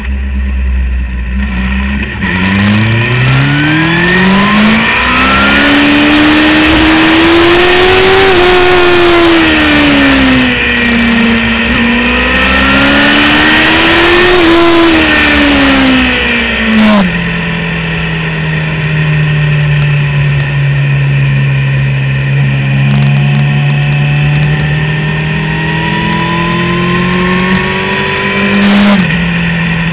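Suzuki GSX-R750 sportbike's inline-four engine heard from an onboard camera: from low revs it accelerates hard, its pitch climbing and dipping through throttle and gear changes. About halfway it drops suddenly to a steady cruise whose pitch sinks slowly, with a brief blip near the end. Wind rush on the microphone runs under it.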